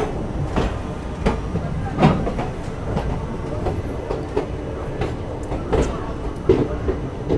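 Express train coach's wheels rolling over rail joints as the train runs into a station: a steady low rumble with a sharp clack about every three-quarters of a second.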